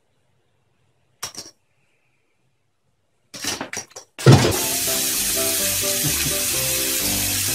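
Silence at first, broken by one short noise about a second in and a few short noises around three and a half seconds. From about four seconds in comes background music with a simple stepped melody over a steady hiss of a running bathroom tap.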